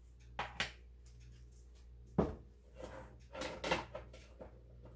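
Several short knocks and clatters of kitchen items being handled and set down, with one louder thump about two seconds in, over a faint steady hum.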